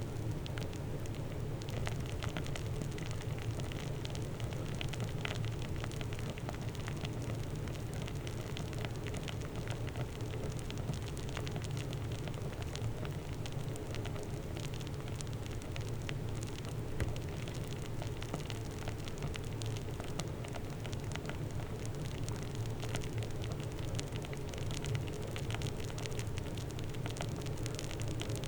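Foam fizzing, many small bubbles popping in a steady, dense crackle.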